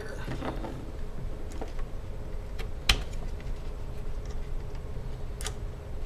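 A few light clicks and taps from hands and a small screwdriver working on a laptop's motherboard and plastic case, the sharpest about halfway through and another near the end.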